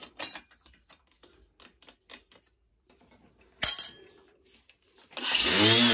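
Metallic clinks and ticks as a diamond cutting disc is fitted onto an angle grinder, with a sharp click about three and a half seconds in. Then, about five seconds in, the grinder is switched on and runs loudly, its motor pitch rising and then falling. The owner finds the new disc is not balanced correctly.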